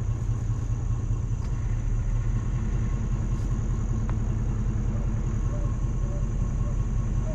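Pickup truck driving on a paved road, heard from inside the cab: a steady low rumble of engine and tyres.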